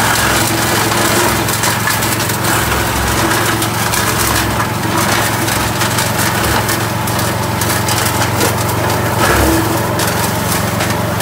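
Vezdekos TS 1000 walk-behind brush mower's engine running steadily under load as it is pushed through tall dry weeds and saplings, with a constant crackle and snapping of woody stalks being cut.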